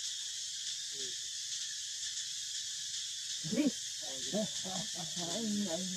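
Steady high buzzing of insects in the forest, with indistinct low voices, or calls like voices, coming in a little past halfway.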